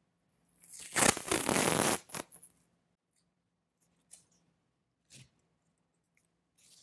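Blue painter's tape pulled off its roll in one long rip of about a second and a half, followed by a few faint rustles and taps as the strip is handled.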